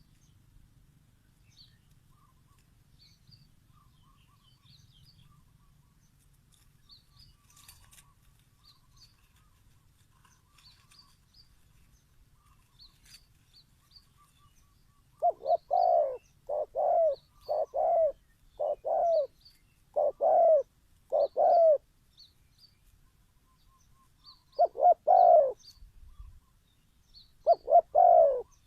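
Spotted dove cooing: after a quiet first half with only faint high chirps from other birds, a run of about seven low coos starts about halfway through, followed by two shorter groups of coos near the end.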